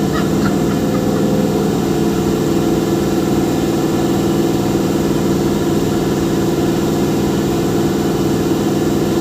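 Engine of the hydraulic machine running steadily at an even speed.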